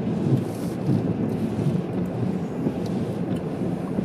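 Steady low rumble of a car driving through a rainstorm: rain and road noise, with a few faint ticks.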